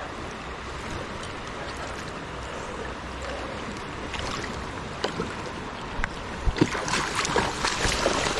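Steady rush of river water, then from about six and a half seconds in a run of irregular, louder splashes as a hooked steelhead thrashes in the shallows.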